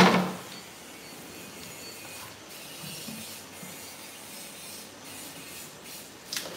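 A sharp knock at the very start, the loudest sound, then faint handling noise as things are moved about; near the end a second, smaller knock as an empty glass tank is set down on the tiled floor.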